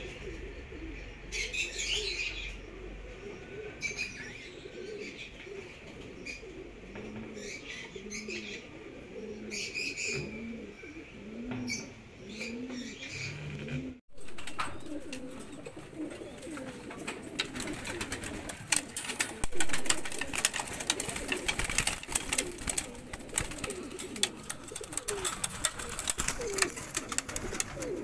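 Mookee pigeons cooing, with a regular run of low rolling coos about once a second in the first half and short high chirps from other birds above them. After an abrupt cut about halfway, the cooing goes on over a busy clatter of clicks, rustling and wing flaps.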